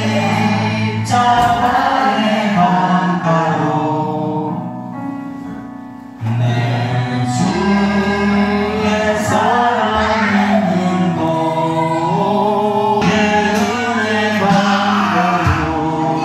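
Church worship music with a choir singing, relayed from the service into the room. A phrase fades out about four seconds in, and the singing comes back in full just after six seconds.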